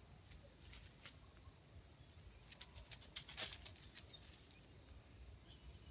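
Near silence broken by faint crackles of dry leaf litter as wild junglefowl forage on the ground: a couple of single crackles in the first second, then a quick cluster of them around the middle.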